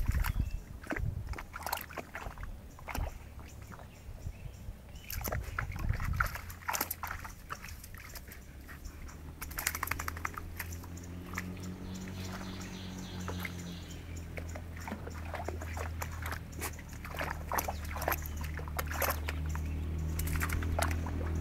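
A small dog wading through a shallow puddle, water sloshing and splashing irregularly around its legs. From about ten seconds in, a steady low motor hum runs underneath and grows a little louder near the end.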